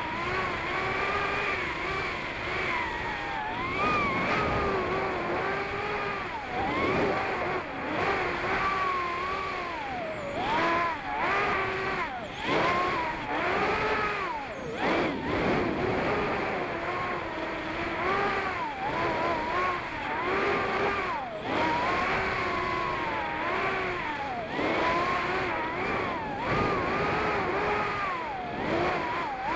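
Brushless motors and propellers of a TinyHawk II Race micro FPV drone whining in flight, recorded by the camera mounted on the drone, so very close to the motors. The pitch rises and falls continually as the throttle changes.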